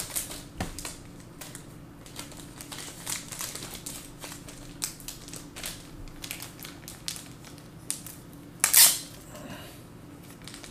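Trading cards and their plastic holders being handled on a table: scattered light clicks and taps, with one brief louder plastic rustle near nine seconds.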